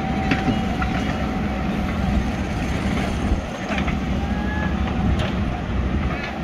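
JCB 3DX backhoe loader's diesel engine running under load as the backhoe arm swings across and lifts, with a few sharp metallic knocks from the bucket and linkage.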